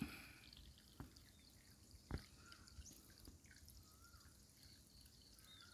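Near silence with a few faint drips of water falling into a muddy ditch, the clearest about two seconds in.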